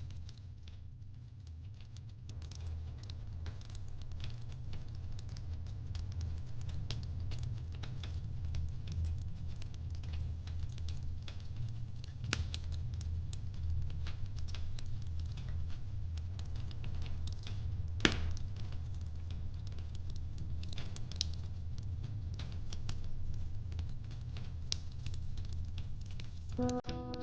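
Wood fire in a fire pit crackling: a dense run of small snaps over a low steady rumble, with a few sharper pops, the loudest about two-thirds of the way through. Music comes in just before the end.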